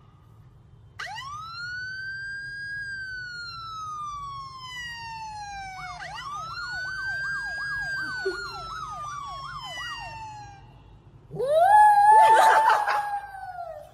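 A siren sound played from a phone: a wail that rises quickly and then slowly falls, followed by a faster warbling yelp that falls in pitch. Near the end a small white dog howls along, louder than the siren.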